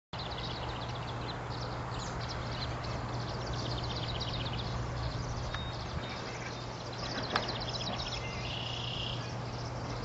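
Small songbirds calling in the reeds: several fast trills of short high notes, about a second or two each, and a short buzzy note near the end. A steady low hum runs beneath them.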